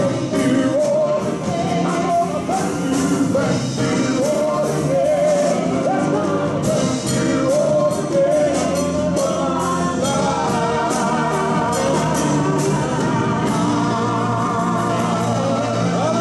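Live gospel worship band playing: a man and a woman singing into microphones over keyboards and a drum kit with cymbal strokes.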